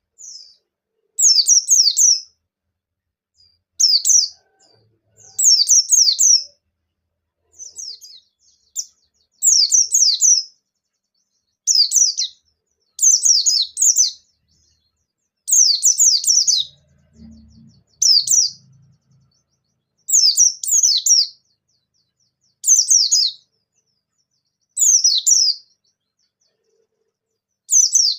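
Pleci bustomi (a white-eye) singing in full song: short phrases of fast, high, downward-sliding chattering notes, each about a second long, repeated every one and a half to two seconds.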